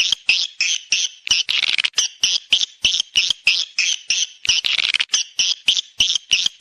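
Swiftlet calls from a swiftlet-house lure recording of the mating call: quick high chirps repeating about five times a second, with a longer dense twitter near five seconds in.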